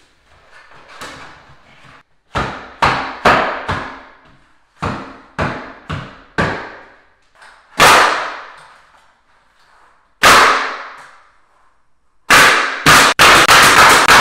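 Cedar baseboards being nailed to the wall: about ten sharp bangs at uneven intervals, then a quick run of strikes near the end, each ringing out in the bare, empty room.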